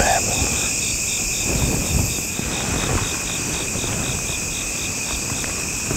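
Insect chorus of crickets and other insects: a steady high trilling, with one insect pulsing at about four chirps a second that stops near the end.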